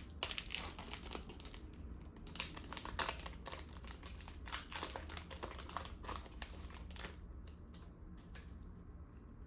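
Trading-card pack wrapper being opened and handled: dense crinkling and crackling that stops about seven seconds in, followed by a few light clicks.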